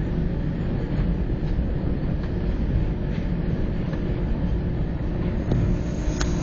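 Suspended monorail car running along its track, heard from inside the cabin: a steady low rumble with a faint steady hum and a few light clicks.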